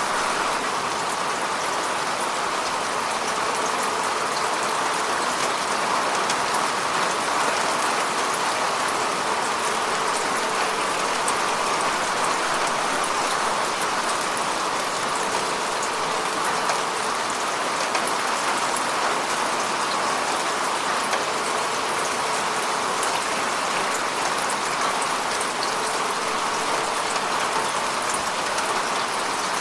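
Steady rain falling on a lake's water surface: a constant hiss of many small drops pattering, even in level throughout.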